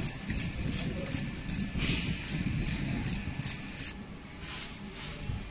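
Ratchet spanner clicking, about two or three clicks a second, as it turns a bolt on a nail-clipper making machine. The clicking stops about four seconds in, leaving a steady low machine hum.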